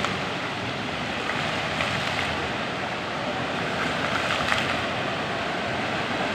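Water from an indoor dancing fountain splashing, heard as a steady rushing.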